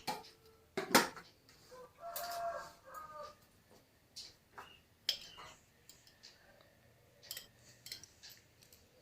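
A spoon knocking and clinking against a bowl of batter ingredients, several separate strikes. About two seconds in comes a brief call, about a second long, that sounds like a bird.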